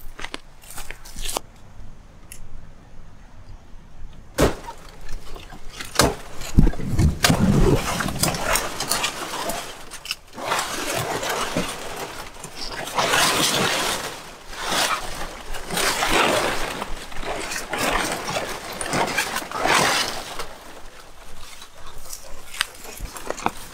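Stiff palm fronds being hacked and pulled with a sickle: a run of sharp cracks and snaps with a few dull thumps, then repeated long rustling swishes of the leaves being dragged and shaken.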